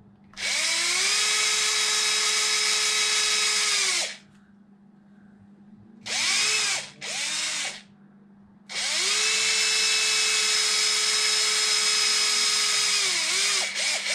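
Red Snap-on cordless driver whining as it spins screws in an RC truck chassis. A run of about three and a half seconds rises in pitch as the motor spools up, then after a two-second pause come two short blips. A longer run of about five seconds winds down in pitch at its end, followed by one more quick blip.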